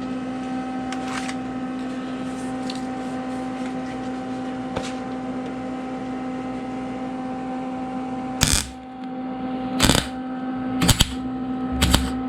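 A steady electrical hum, then four short sharp bursts of MIG tack welding in the last four seconds as a steel patch panel is tacked onto a car's rear quarter panel.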